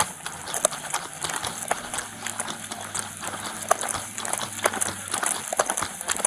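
Irregular clicks and knocks from a jostling police body-worn camera, with a faint steady hum in the middle stretch.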